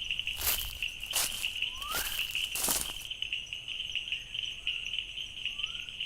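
Night-time insect chorus, crickets keeping up a steady high trill, with short upward-sliding chirps repeating every second or so. In the first three seconds there are a few brief rustling crunches, like steps through leaf litter.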